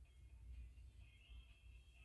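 Near silence, with faint steady high tones from a fire-alarm speaker strobe sounding in alarm, over a low hum.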